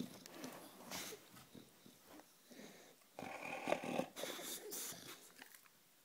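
A sleeping bulldog snoring, with short, irregular snuffling breaths, then a longer, louder rasping snore about three seconds in that lasts nearly two seconds.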